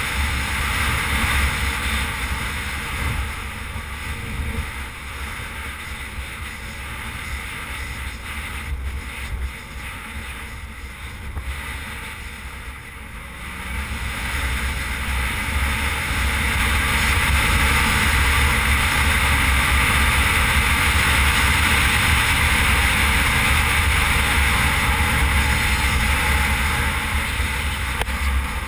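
Wind rushing over a helmet-mounted microphone on a moving Suzuki V-Strom 650 motorcycle, with the bike's V-twin engine running underneath. It eases off for a while, then grows louder about halfway through and stays loud as the bike picks up speed.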